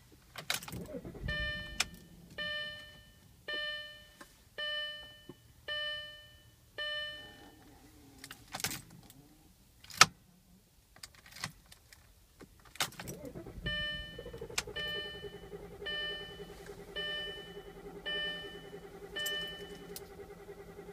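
Audi A4 (B7) dashboard warning chime ringing six times about a second apart, then several sharp clicks from the key and switchgear and a short noisy burst, then the chime repeating over a steady hum with the ignition on. The engine does not start.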